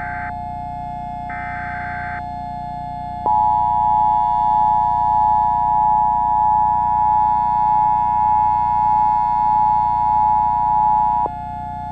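Emergency Alert System header data bursts, two short buzzy screeches about a second each near the start, then the EAS two-tone attention signal sounding steadily for about eight seconds. A steady synthesizer drone runs underneath.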